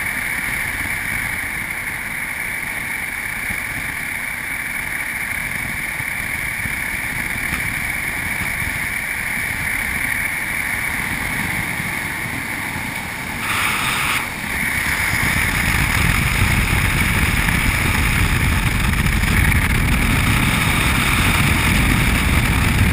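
Steady road and wind noise from an off-road vehicle driving on a gravel track, heard on a camera mounted on its outside: a constant rush over tyre and engine rumble that grows louder about fifteen seconds in.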